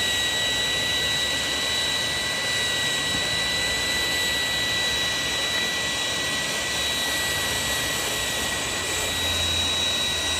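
12-volt portable vacuum cleaner running steadily: an even rush of air with a constant high motor whine.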